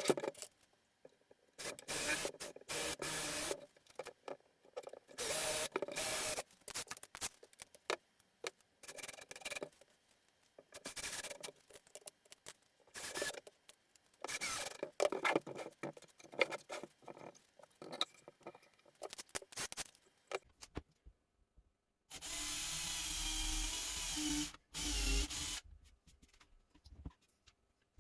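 Irregular rubbing and scraping strokes of hand work on a workpiece, stopping and starting. Near the end comes a steady hiss of about three seconds with a low hum beneath it.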